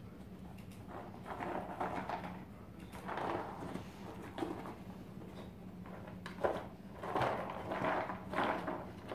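A dog nosing, biting and shoving an egg carton with a few kibble inside across a carpet. Irregular bursts of carton scraping and rustling come and go, with a busier run of them in the second half.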